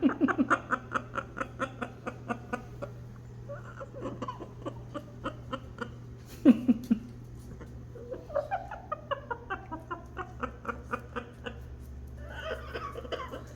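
Pet parrot laughing in long runs of quick ha-ha notes, about four a second, with a short louder call in the middle.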